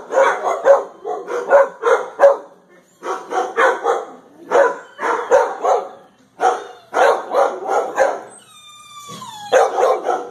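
Shelter dogs barking repeatedly in quick clusters, with short pauses between bursts. Near the end there is one long whine that falls in pitch.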